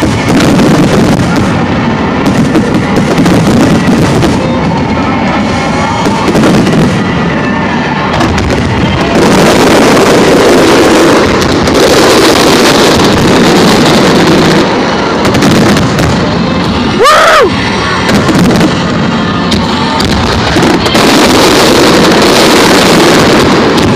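Large fireworks display going off continuously: dense, loud booms and crackling barrages, with music underneath. A short whistle that bends up and down in pitch cuts through about seventeen seconds in.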